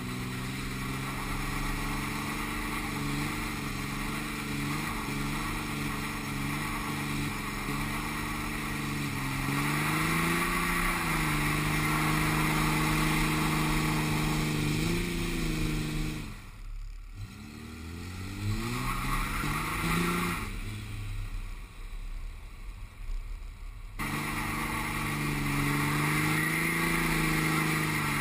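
Cummins inline-six turbo-diesel of a Dodge Ram 2500 held at high revs during a burnout, with the hiss of the spinning rear tyre. About sixteen seconds in the revs drop briefly and then climb again; around twenty seconds the engine sound falls away and comes back suddenly a few seconds later.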